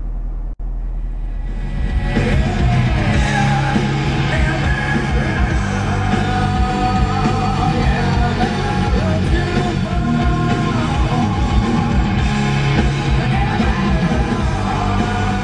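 Rock music with singing playing over the car's Boston Acoustics stereo on FM radio, heard in the cabin; it comes in about two seconds in and carries on loudly.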